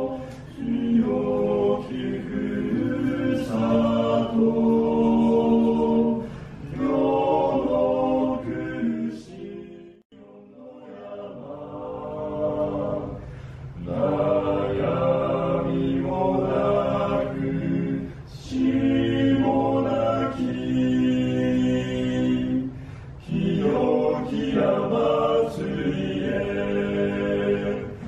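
Men's vocal group singing a hymn a cappella in harmony, in phrases with short breaths between them. About ten seconds in the singing breaks off sharply, then starts again.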